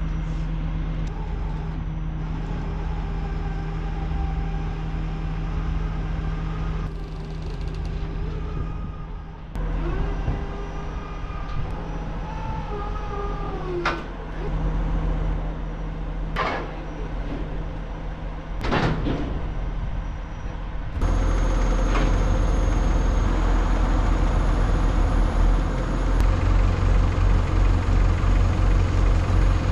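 Heavy truck's diesel engine running at idle, with a few sharp metal knocks. Partway through the rumble becomes abruptly louder and denser, and near the end it pulses evenly.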